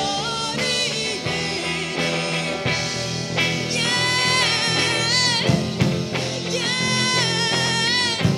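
A rock band playing live: a singer holds long, wavering notes over electric guitars, bass and drums.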